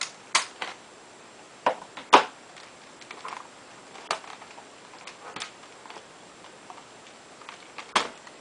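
Sharp plastic clicks and knocks from handling a laptop while its battery is unlatched and pulled out: a few loud clicks at the start, a cluster around two seconds in, scattered fainter ticks, and another loud click near the end.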